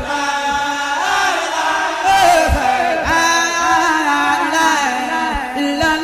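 Background music of chanted singing: a voice holds long notes that slide up and down in pitch, with short breaks between phrases.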